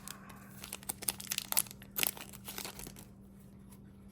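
Foil trading-card pack wrapper crinkling as the pack is opened and handled: scattered crackles that thin out and grow fainter after about three seconds.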